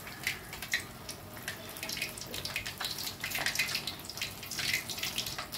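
Breaded chicken wings deep-frying in a wok of hot oil: a steady sizzle full of quick crackles and pops, getting busier and a little louder from about two seconds in.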